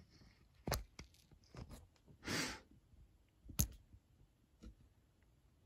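A few scattered clicks and knocks, the sharpest about three and a half seconds in, and a short breathy exhale a little past two seconds.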